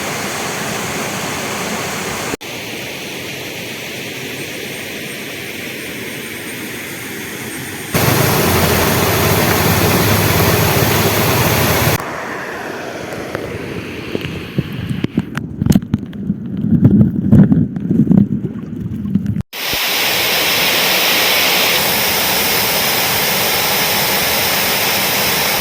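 Waterfall rushing as a steady noise, heard in several clips whose loudness and tone change abruptly at each cut. Irregular low thumps break in about two-thirds of the way through.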